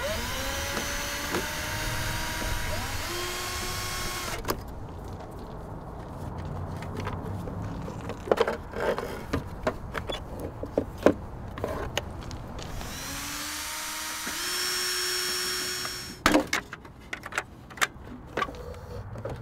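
Cordless drill running in two spells, its motor pitch rising as it spins up, with sharp clicks and knocks of tools and parts being handled in between.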